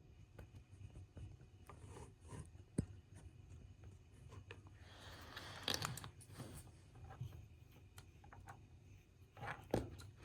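Faint clicks and scraping of small plastic model-locomotive parts being pried apart with a screwdriver. There is a sharper tick about three seconds in and a longer scrape a couple of seconds later.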